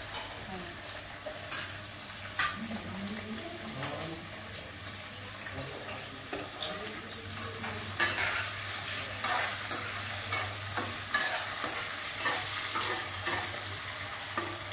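Cubed potatoes frying with cumin in ghee in a metal kadai, sizzling steadily. From about halfway through, a slotted metal spoon stirs them, clicking against the pan about once a second.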